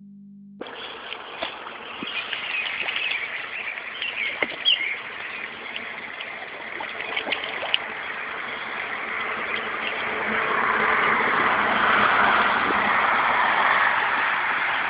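Outdoor garden-pond ambience: a steady rushing hiss with scattered small clicks and a few short high chirps in the first few seconds. The hiss grows louder from about ten seconds in.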